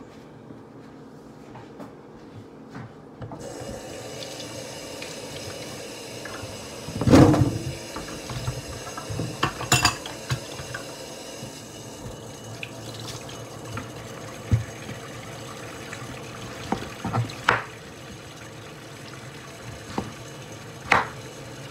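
Kitchen tap running in a steady hiss that starts a few seconds in. Over it come a loud knock about seven seconds in and several sharper clacks, the last ones from a knife cutting breadfruit on a wooden cutting board.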